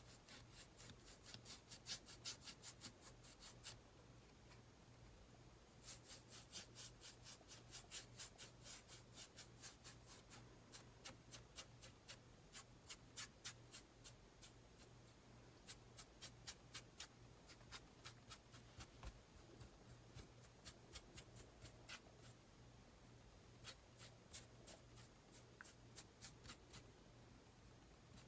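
Paintbrush bristles dabbing and scrubbing on an acrylic canvas panel. The strokes come quickly, about four or five a second, in bursts broken by short pauses, and are faint.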